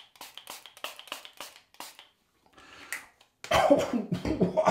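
Hand pump mister spraying aftershave in a rapid series of short hissing sprays, about three a second, during the first two seconds. About three and a half seconds in, a loud burst of coughing follows.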